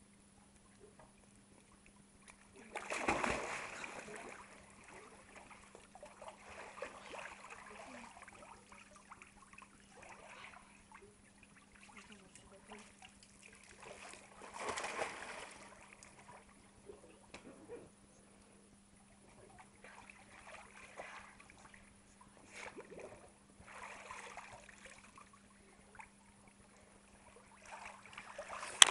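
Swimming-pool water splashing and sloshing as people move in it, with louder splashes about 3 and 15 seconds in and smaller ones later. A faint steady hum runs underneath.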